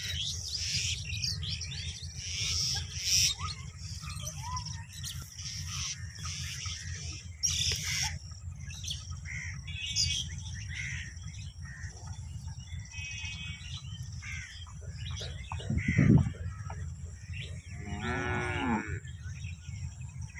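Cattle mooing: two calls in the latter part, a low one and then a longer arching moo near the end, over a steady low rumble and scattered bird chirps.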